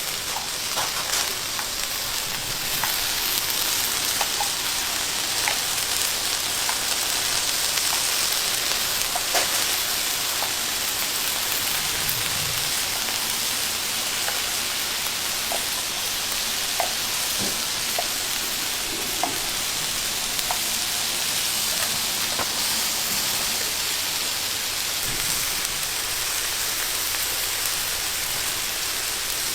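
Food frying in hot oil, a steady sizzle with small scattered crackles.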